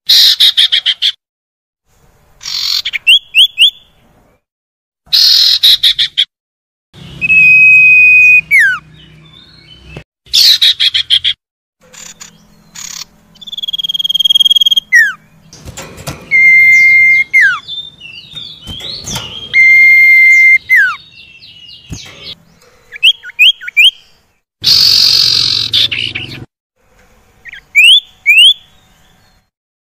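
Common iora (sirtu/cipoh) calls: harsh rasping chatters alternating with clear whistles. Some whistles are held level and end in a falling slur; others are quick rising notes, in short bursts with silent gaps between.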